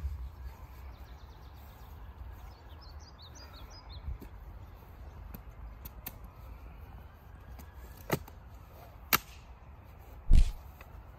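Folding camp chair's metal frame being collapsed: a handful of sharp clacks as the joints fold, the loudest with a thump near the end, over a low wind rumble and a bird chirping briefly.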